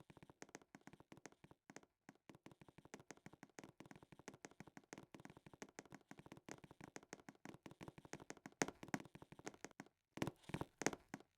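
Faint, rapid, irregular clicks and taps, growing a little louder near the end.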